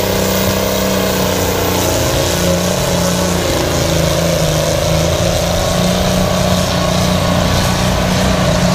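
Farm tractor's engine running hard under load as it pulls a weight-transfer sled down a pulling track: a loud, steady drone whose pitch wavers slightly.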